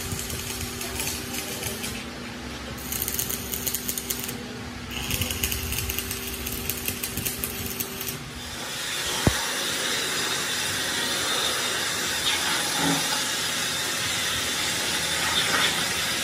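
A power tool runs in three bursts with short pauses, a fast buzzing rattle over a steady hum. About eight seconds in it gives way to a steady, louder hiss, broken once by a sharp click.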